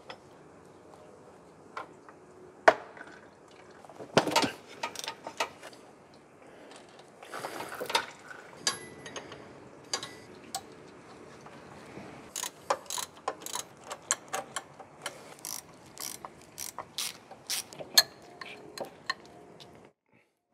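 A ratchet wrench clicking in short spurts, with sharp clinks of tools on metal, as the hydraulic line fittings on a power steering pump are undone.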